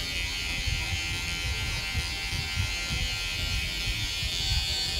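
Cordless hair clipper with a 1.5 guard comb and its taper lever open, running with a steady buzz as it is swept upward through short hair in a scooping motion, blending out a line in a fade.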